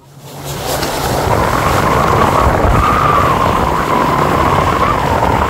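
Boat engine running under way, coming up over the first second into a loud, steady drone with a whine running through it.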